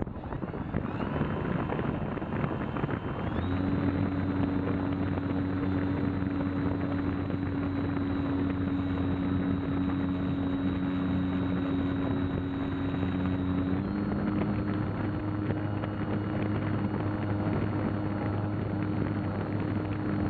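Rushing air over an RC glider's onboard camera in flight, with a steady hum under it that sets in a few seconds in and steps up in pitch a little past the middle.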